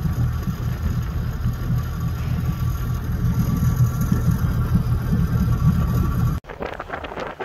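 Motorboat engine idling, a steady deep hum. About six seconds in it cuts off abruptly, and wind gusts buffet the microphone.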